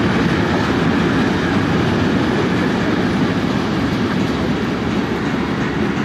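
Container freight train's wagons rolling past, a steady loud rumble of steel wheels on the rails.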